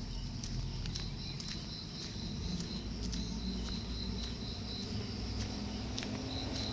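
Crickets or other insects chirring steadily in the roadside vegetation, a pulsing high thin tone, with faint ticks about twice a second and a low rumble underneath.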